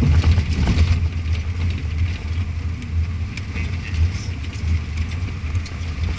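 Vehicle engine running steadily at low speed on a dirt road, heard from inside the cabin as a low hum, with scattered light clicks and rattles.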